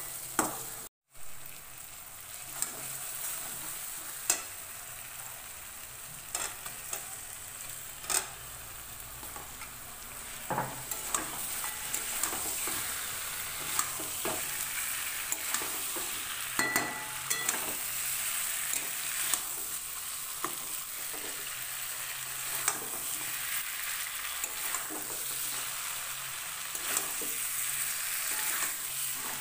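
Chicken pieces and spice paste sizzling in hot oil in an aluminium kadai, a steady hiss, while a wooden spatula stirs and scrapes them, knocking against the pan in irregular clicks. The sound cuts out for a moment about a second in.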